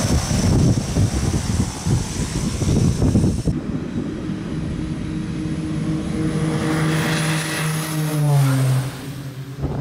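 Twin-engine turboprop jump plane's engines and propellers running. At first the sound is close by with gusting prop wash on the microphone. Then it becomes a steady drone that swells as the plane races past along the runway, dropping in pitch as it goes by near the end.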